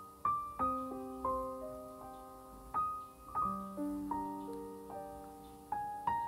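Background music: a gentle solo piano melody, single notes and chords, each struck note fading slowly.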